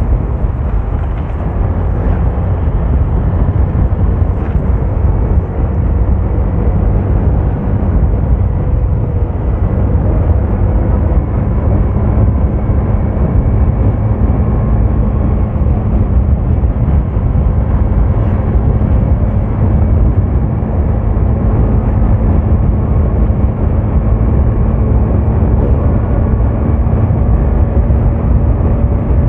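Vehicle on the move: a steady engine drone over heavy rumbling wind and road noise, the engine's pitch creeping slowly up.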